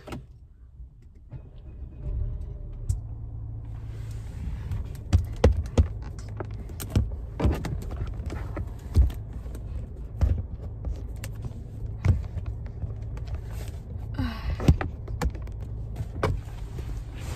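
A car engine comes on about two seconds in and runs steadily, heard from inside the cabin, with many close clicks and knocks of a phone being handled and set up in the car.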